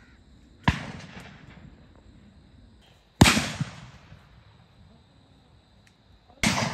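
Three shotgun shots, each followed by a long echo rolling away, the second the loudest.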